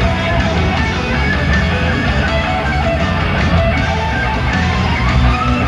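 Heavy metal band playing live: distorted electric guitars over bass and drums, with a lead guitar line on top. Near the end the lead guitar bends a note up and back down.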